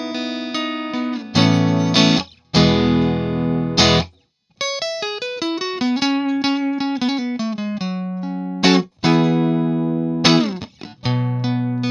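Fender Stratocaster electric guitar playing: ringing chords, cut off briefly about four seconds in, then a quick run of single notes, then chords again with a note sliding down near the end.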